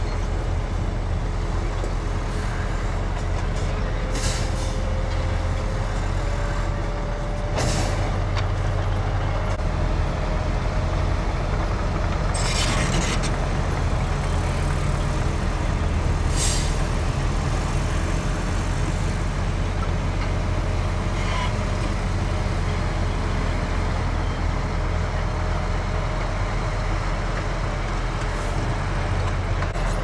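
Heavy diesel dump truck engines running steadily while tipping loads of dirt, with about five short, sharp air-brake hisses spread through.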